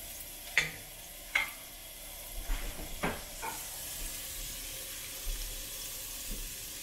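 Minced ginger sizzling steadily in hot oil in a nonstick wok. A wooden spatula stirs it, knocking sharply against the pan twice in the first couple of seconds and a few more times soon after.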